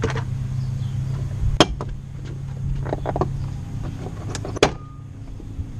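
Plastic clips of a 2006 Ford F-150's interior door trim panels snapping loose as the panels are pulled off by hand: two sharp snaps about three seconds apart, with smaller clicks and rattles between, over a steady low hum.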